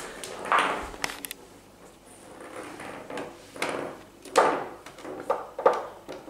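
Irregular knocks and clatters of a small cat toy being batted and skittering across a hard tiled floor by a kitten. The loudest clacks come a little past the middle and near the end.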